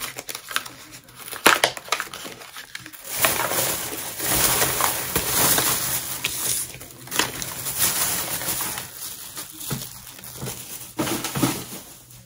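Clear plastic packaging crinkling and crackling as it is handled and pulled open by hand, densest about three seconds in, with scattered sharp clicks.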